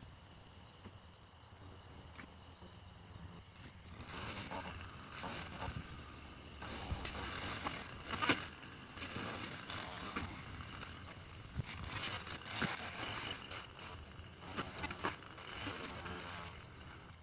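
Field insects trilling steadily in high thin tones. From about four seconds in, irregular rattling, scraping and knocking joins them, loudest twice, around the middle and again a few seconds later.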